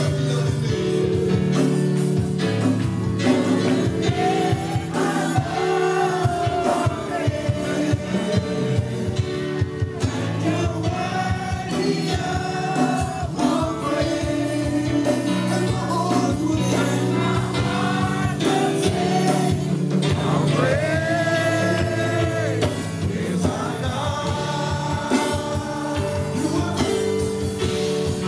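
Gospel worship song: several voices singing a melody over instrumental accompaniment.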